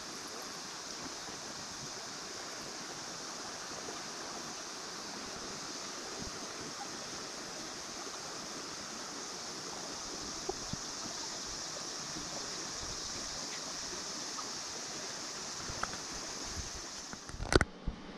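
Steady hiss and ripple of a shallow river flowing past a gravel bar. About a second before the end the water sound cuts off and a few sharp knocks follow.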